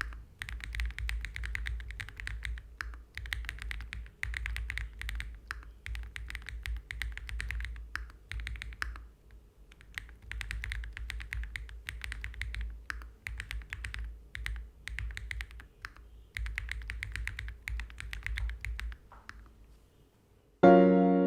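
Typing on a gasket-mounted mechanical keyboard with JWK Klein switches: fast runs of keystroke clicks in bursts, with short pauses between them. Near the end the typing stops and loud piano music comes in.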